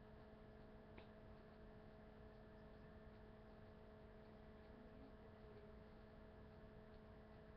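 Near silence: a faint steady electrical hum over low background hiss, with one faint click about a second in.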